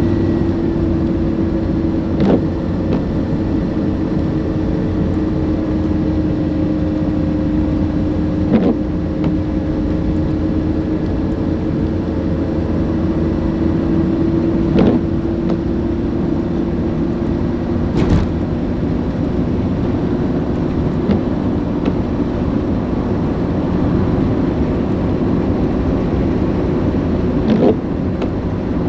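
A car driving at a steady speed: continuous engine and road drone with a held tone, broken by a handful of short, sharp knocks spread through it.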